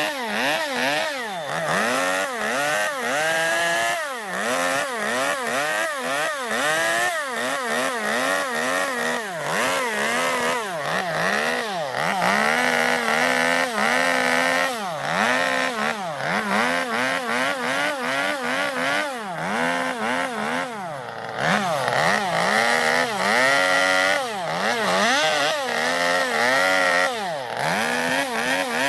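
Gasoline two-stroke chainsaw revving up and dropping back over and over, about once a second, as it cuts into zelkova wood to hollow out a bowl.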